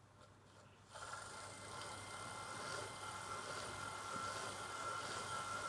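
Model Southern Railway Q1 locomotive's electric motor and gearing running on a rolling road, starting about a second in and then holding a steady whine with the wheels turning on the rollers. It is a test run after the wheels were cleaned and new tender pickups fitted to cure poor running.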